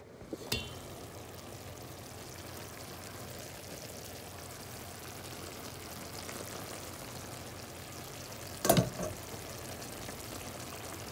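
A pot of eggplant, green peppers, tomatoes and garlic in olive oil sizzling steadily on the stove, cooking in the tomatoes' own juice with no water added. There is a sharp clink about half a second in and a louder knock near the end.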